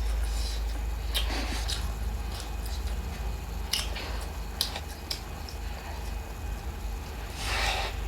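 Close-miked chewing and mouth sounds of a person eating: scattered wet clicks and smacks, and a short noisy rush near the end, over a steady low hum.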